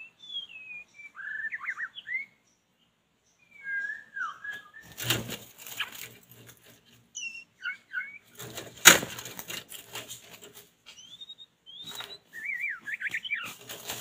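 White-rumped shama singing short whistled phrases that glide up and down, broken by bursts of wing flapping and rustling at the trap from about five seconds in. A single sharp, loud snap comes near nine seconds.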